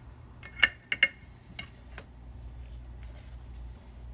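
Metal parts clinking against a motorcycle front fork tube as a part is guided down inside it: two sharp, ringing clinks less than half a second apart, then a couple of fainter taps. A low steady hum runs underneath.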